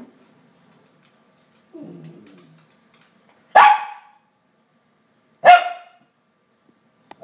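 Small dog barking up at a Christmas stocking that holds its treats and squeaky toys: demanding barks. There are two loud, sharp barks about two seconds apart, and a third starts right at the end.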